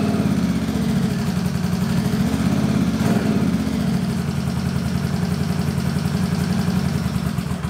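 Honda CX650E's liquid-cooled V-twin engine running on its first start after the rebuild, its speed wavering a little, then cutting off suddenly at the very end.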